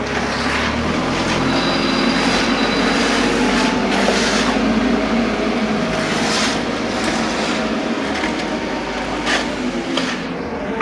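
An engine running steadily, with intermittent scrapes and knocks over it.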